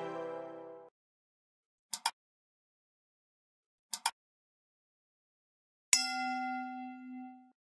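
Soft intro music fading out, then two quick double mouse-clicks about two seconds apart and a bell-like ding that rings on for about a second and a half: the sound effects of a like, subscribe and notification-bell animation.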